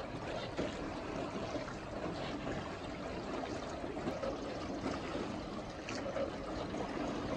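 Steady trickle and lapping of river water around a small rowed boat moving along.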